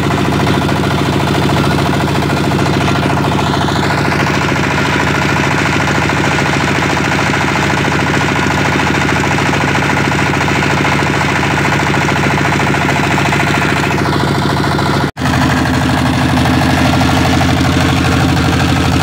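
A boat engine running steadily under way, a dense drone of even tones with a rushing hiss over it for much of the time. About fifteen seconds in the sound drops out for an instant, and the engine note after it is slightly different.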